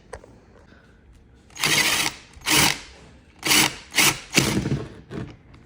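Power drill boring a hole through a plastic tote lid, run in about five short bursts starting a second and a half in.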